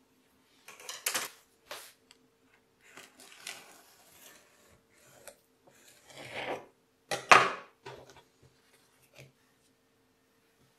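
Short scraping and rubbing sounds of a clay slab being worked by hand: a paper template is lifted off and a needle tool is drawn along a plastic ruler to cut the clay. They come in several brief bursts, the loudest about seven seconds in, over a faint steady hum.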